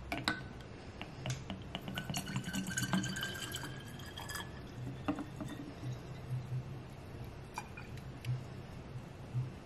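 Mouthwash poured from a plastic bottle into a glass dispenser through its narrow threaded neck: liquid trickling and glugging with small clicks, busiest for the first four seconds or so and then quieter.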